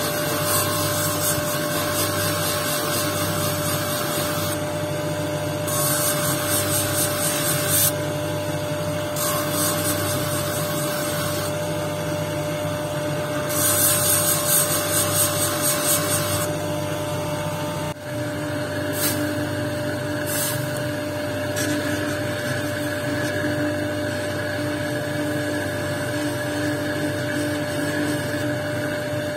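Electric lapidary grinding and polishing machine running with a steady motor hum, while a jasper stone on a dop stick is pressed against the spinning wheel: four spells of loud hissing scrape, each a few seconds long, in the first half. After a cut about two-thirds of the way in, only the steady motor hum remains, with a few light ticks.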